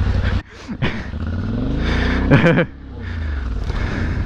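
Motorcycle engine running close by and being revved, its pitch climbing and falling a few times as the throttle is worked, with a loud burst a little past halfway.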